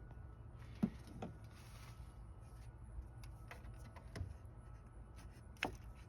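A few sharp clicks and knocks of tools and parts being handled while radiator hoses and transmission cooler lines are taken off a car, the loudest about a second in and another near the end, over a low steady hum.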